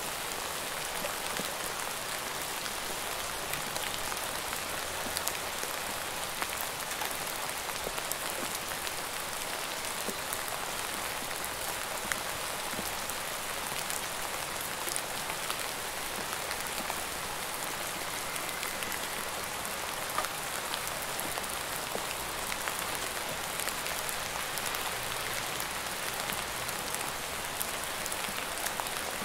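Steady rain falling, a constant hiss with many individual drops tapping close by.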